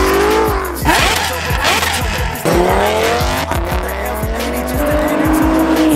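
Performance-car engines accelerating hard, the pitch climbing, dropping back at each gear change and climbing again, over hip-hop music with a heavy bass line and a steady beat.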